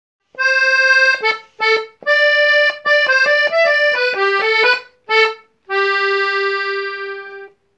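A short solo instrumental tune of single sustained notes, ending on one long held note that fades out.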